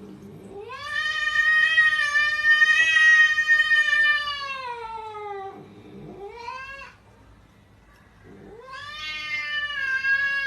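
A cat yowling: one long drawn-out call that sags in pitch at its end, a short rising call, then after a pause another long call near the end.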